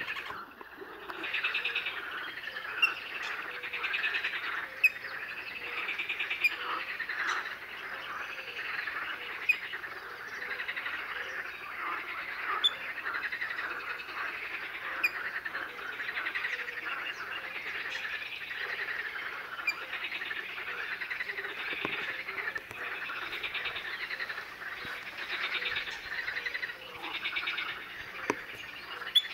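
A wetland chorus of calling frogs and birds, a dense run of rattling, pulsed calls that swells and fades every second or two, with short sharp calls standing out every few seconds.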